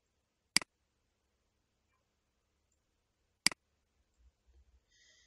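Two sharp computer-mouse left-button clicks, about three seconds apart, with near silence between them.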